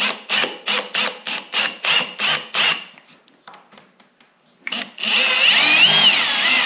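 Cordless drill boring a quarter-inch hole through a snowmobile's aluminum tunnel. It is first run in short pulses, about three a second, then after a pause it runs steadily with a whine that wavers in pitch as the bit cuts.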